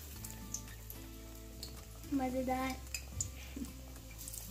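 Pakoras (gram-flour batter fritters) sizzling steadily as they deep-fry in hot oil. Near the end another battered piece is slipped into the oil.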